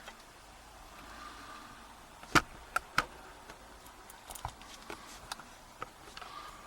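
Sharp metallic clicks and knocks of a brass euro cylinder lock being handled and released from a bench vise: one loud knock a little over two seconds in, two more just after, then a few lighter taps.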